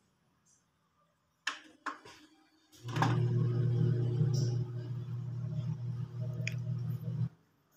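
Two sharp clicks, then the speakers of a Sony Shake-X10D hi-fi system put out a loud, steady low-pitched, bass-heavy sound for about four seconds that cuts off suddenly. The system is sounding again after its PROTECT 01 fault was cleared.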